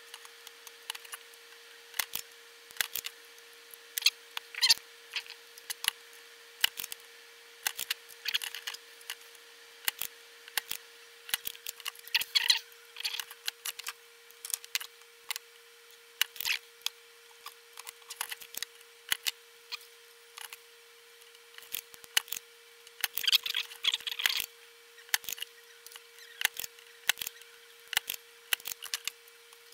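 Irregular sharp clicks, taps and scrapes of metal tools and components against a power-supply circuit board being desoldered, over a faint steady tone.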